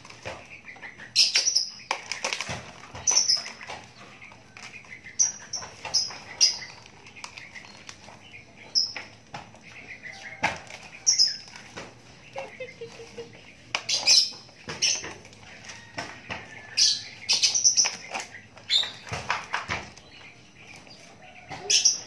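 Young Javan myna in a wire cage giving short, high chirping calls every second or two, with brief wing flaps as it hops between the perch and the cage floor.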